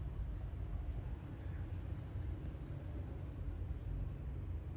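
Steady low background rumble with no distinct events. A faint, thin high-pitched tone comes in about two seconds in and lasts about a second and a half.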